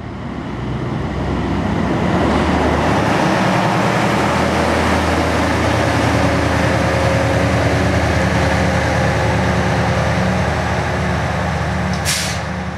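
Small diesel shunting locomotive's engine running steadily as it moves along the track, with a constant low engine note. A brief sharp click comes near the end.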